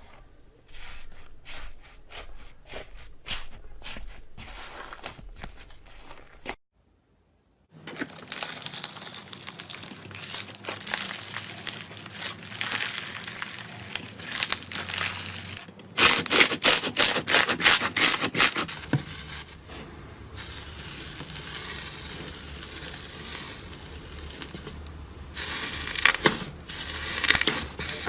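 Slime being squeezed, stretched and poked by hand, with sticky crackling and popping. Several clips follow one another, with a second of silence about a quarter of the way in and a louder, fast run of crackles a little past the middle.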